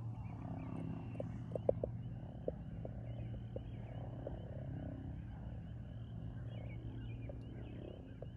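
Many small high-pitched chirping calls from animals in the open countryside, over a steady low rumble, with a few sharp clicks in the first few seconds.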